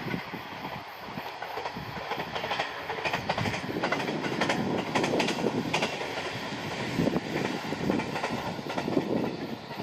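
An Echigo TOKImeki Railway passenger train running past, its wheels rumbling and clattering over the rail joints.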